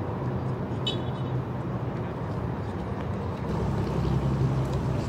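Steady low rumble of an idling vehicle engine, growing louder about three and a half seconds in. A brief high chirp comes about a second in.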